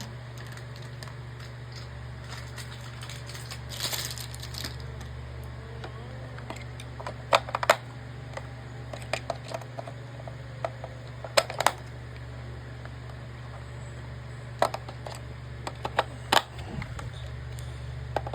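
Batteries being taken out of a toy's battery compartment: scattered sharp clicks and clinks of metal and plastic, several pairs of them seconds apart, with a brief scrape about four seconds in, over a steady low hum.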